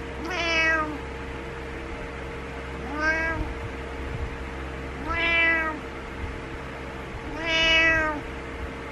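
Orange-and-white domestic cat meowing four times, each meow under a second long, rising then falling in pitch, a couple of seconds apart. These are demanding meows to get its owner out of bed in the morning.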